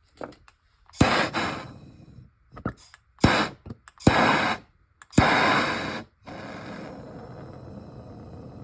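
Handheld gas torch clicked several times, each click followed by a brief hissing rush of gas and flame, then about six seconds in the torch settles into a steady hiss as it burns, reheating a soldered joint.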